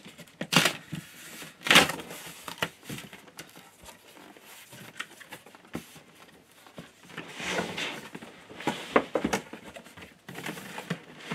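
A cardboard box being opened by hand: glued flaps ripped loose with a few sharp cracks near the start, then cardboard scraping and rustling as the flaps are folded back.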